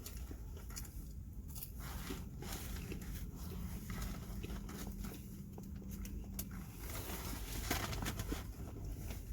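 Close-up eating sounds: chewing and crunching food, with scattered small clicks and rustles, over a low steady hum.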